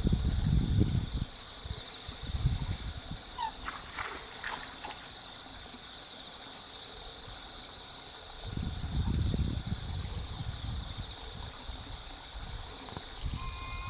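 Steady outdoor insect chorus, several high-pitched trills going on together without a break. There are a few short chirps about four seconds in, and low rumbles near the start and again around nine seconds in.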